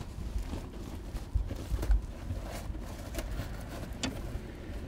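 Roll of foil-faced bubble radiant-barrier insulation being unrolled across a cargo van's floor: rustling with scattered knocks and thumps on the floor, the heaviest about two seconds in.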